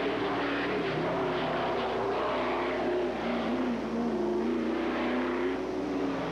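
Race car engine running hard on a mountain hillclimb course, its pitch rising and falling several times as it revs up and drops back.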